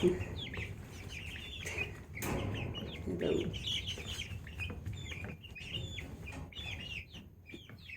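A flock of young chickens calling, many short high chirps and clucks overlapping without a break.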